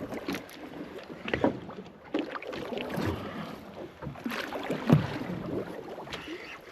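Small boat on the water: hull and water noise with irregular knocks, the sharpest about a second and a half in and near five seconds in, and wind on the microphone.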